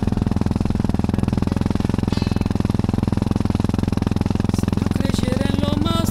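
Single-cylinder dual-sport motorcycle engine running steadily as the bike rides, a rapid, even pulse of firing strokes.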